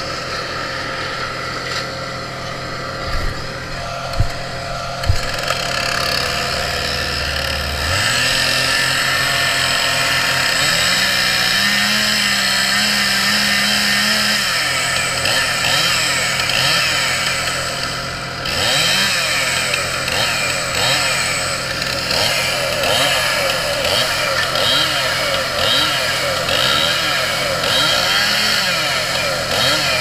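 Gas chainsaw running steadily, cutting palo verde wood, and growing louder from about eight seconds in. Three short thumps sound in the first few seconds.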